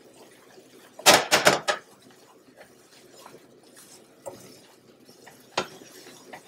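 A stirring utensil knocking and scraping against a nonstick saucepan as a roux is stirred: a quick run of four or five knocks about a second in, then a lighter knock and one sharp knock later on.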